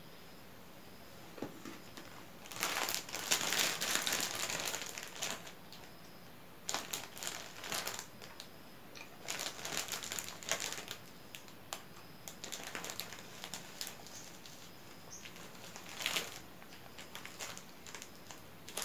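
A thin plastic bag crinkling in irregular bursts as hands dig into it and pull out strands of sai mai spun sugar.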